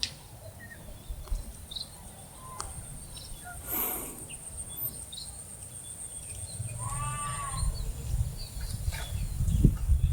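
Small birds chirping in short scattered calls over a steady high whine that stops about three quarters of the way through. A single bleat, likely a goat, comes about seven seconds in. Low rumbling and thumps build toward the end.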